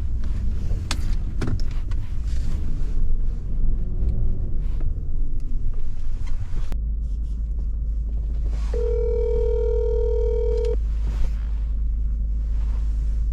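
Steady low rumble of a vehicle cabin, with scattered clicks and knocks in the first half, then a phone's ringback tone rings once for about two seconds while the call waits to be answered.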